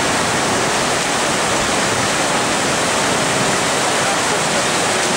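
Storm-swollen stream in flood, its brown water rushing over a road in a loud, steady wash of noise.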